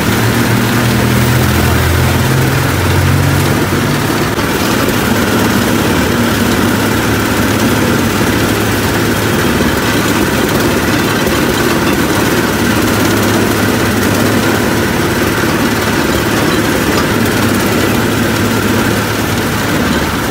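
Sugarcane juice press running steadily, its motor turning the ridged steel rollers as cane stalks are crushed between them. A low hum is heavier in the first few seconds.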